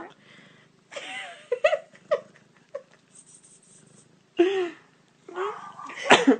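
A pet animal making a series of short calls, about half a dozen with gaps between, several rising and then falling in pitch; the loudest come a little after four seconds in and near the end.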